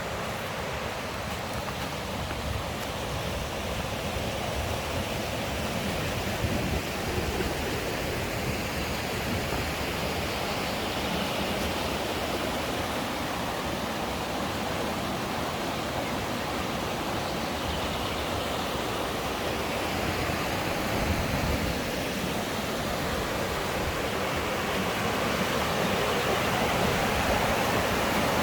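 Mountain stream rushing over rocks, a steady rush of water that grows a little louder near the end.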